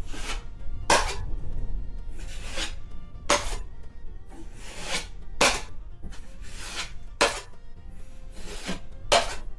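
Drywall knife scraping joint compound over paper tape on a wall patch: a series of short scraping strokes, about one a second, as excess mud is squeezed out from under the tape.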